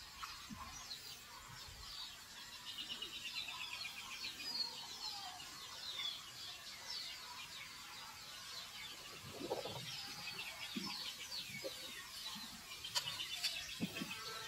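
High-pitched chirping calls, many quick chirps coming in rapid runs, with a few soft low knocks around the middle.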